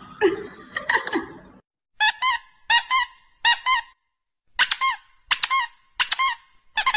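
Short, high, identical squeaks in pairs, like a squeezed rubber toy, about six pairs with short gaps between them, each pair as a finger presses a white cat's head.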